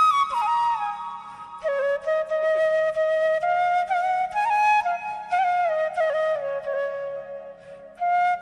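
Background music: a flute-like melody of held and sliding notes over a steady low drone.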